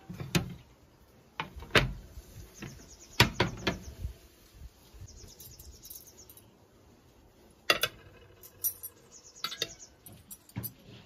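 Plates and metal cutlery being set down on a glass tabletop: a series of sharp clinks and knocks, with a few short rattles of cutlery.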